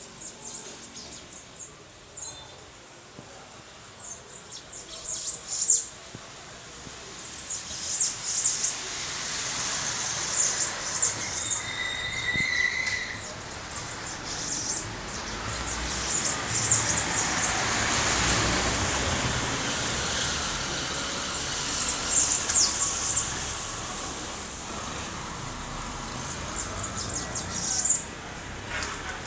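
A small bird chirping in quick runs of high, thin chirps. Traffic noise from a passing car swells and fades in the middle.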